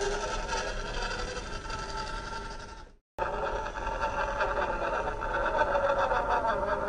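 Small electric motor and gearbox of a Kyosho Mini-Z 4x4 RC crawler whining, its pitch wandering with the throttle. The sound fades out and cuts off about three seconds in, then starts again.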